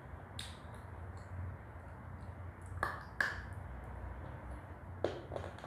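Wet mouth sounds of eating a soft clay paste from the fingers: a few short, sharp smacks and clicks, two of them close together around the middle, over a low steady hum.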